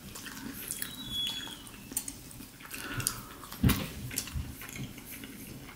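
Quiet chewing and small mouth clicks while a fried chicken sandwich is picked apart by hand, with a soft thump a little past halfway.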